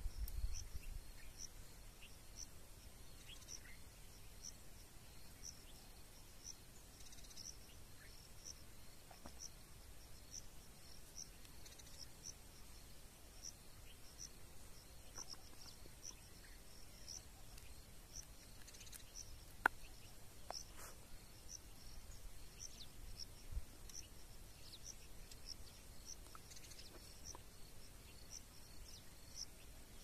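Faint, evenly repeated high chirps of an insect such as a cricket, a little more than one a second, over a quiet outdoor background. A low rumble of wind on the microphone at the start, and a couple of brief sharp calls about twenty seconds in.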